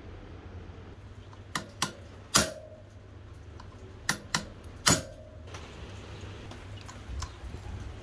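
Sharp metallic knocks of a hand tool on the axle of an electric-bike hub motor: six strikes in two groups of three, the last of each group the loudest with a short ring.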